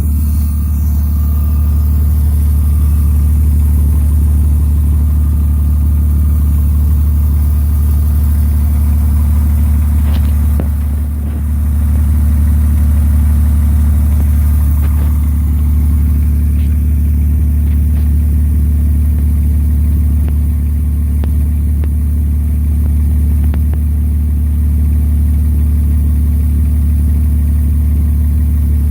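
2001 Honda Odyssey's V6 engine idling steadily, with a brief dip about eleven seconds in. It is running after being started by shorting across the starter terminals with a screwdriver, because the starter is failing.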